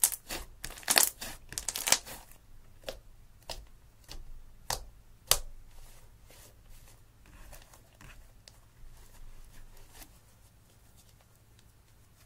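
Hands squeezing and kneading thick slime, giving a run of wet clicks and pops. They come thick and loud in the first two seconds or so, then sparser and fainter as the slime is pressed and worked together.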